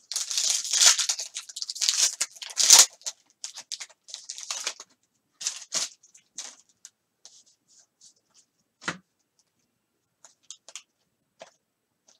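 Trading-card pack wrapper torn open and crinkled for about three seconds, then lighter rustling and scattered soft clicks as the stack of cards is handled.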